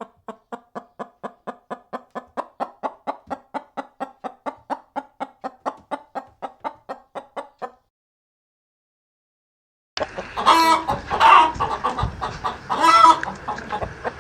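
Chicken clucking in a steady run of short clucks, about five a second, for nearly eight seconds. After about two seconds of silence, a second, hissier chicken recording begins with a few loud squawks.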